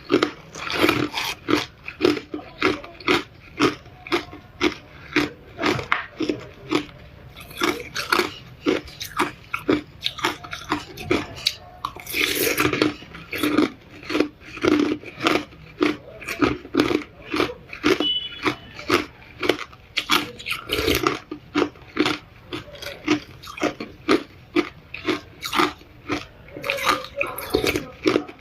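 A person chewing hard ice close to the microphone: sharp, crisp crunches about twice a second, with one longer, louder crunch around the middle.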